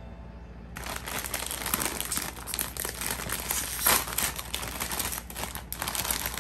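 Foil-lined Ruffles potato chip bag crinkling and crackling as it is handled and pulled open. It starts about a second in, with one sharper, louder crackle about four seconds in.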